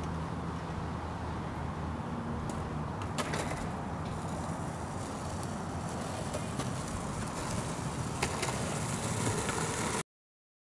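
Steady outdoor background noise, a low rumble with a few faint scattered clicks, cutting off abruptly about ten seconds in.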